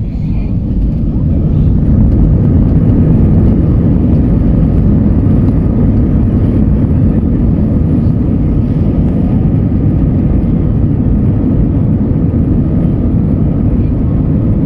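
Airbus A319 jet engines and cabin rumble heard from inside the cabin: a loud, deep roar that grows louder over the first two seconds and then holds steady, typical of the engines coming up to takeoff power for the takeoff roll.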